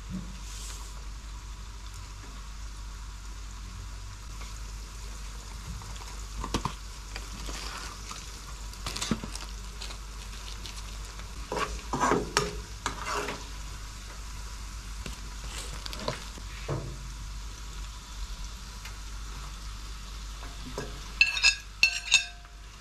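Onions sizzling in hot oil in a frying pan, stirred now and then with a spatula scraping the pan. A few sharp clinks near the end as meat is tipped in from a plate.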